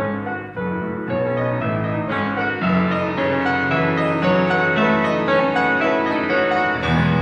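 Background piano music, a flowing melody of many notes over sustained bass notes.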